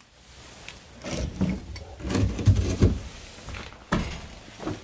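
Clunks, knocks and scraping as a rusted old cast iron drain pipe is handled and shifted among broken floorboards and debris, with a sharp knock near the end.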